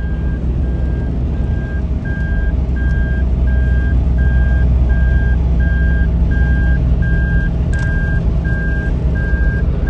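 Toyota Land Cruiser running at highway speed with a deep, steady engine and road rumble. Over it, a dashboard warning chime beeps at one pitch, evenly, a little under twice a second; with the speedometer past 120 km/h, this is the over-speed warning chime.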